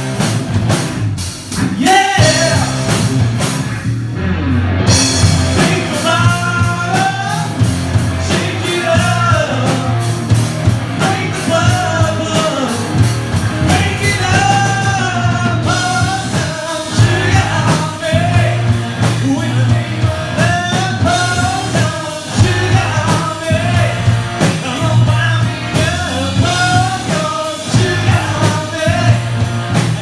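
Live rock band playing: a male singer over electric guitars, bass and a drum kit.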